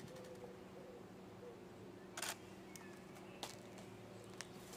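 Camera shutters clicking a few times, with a short rapid burst about two seconds in, over a steady low hum.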